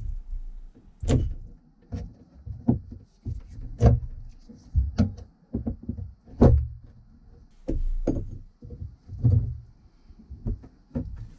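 Irregular metal clunks and knocks of hand tools against a boat's corroded fuel pickup fitting: a screwdriver prying the hardened fuel hose and wrenches being set on the fitting. There are about a dozen separate knocks, unevenly spaced, the loudest a little past the middle.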